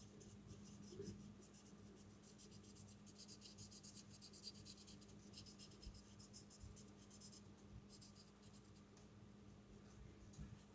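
Faint crackling of food frying in a pan, a dense patter of tiny pops from about two seconds in that thins out near the end, over a low steady hum.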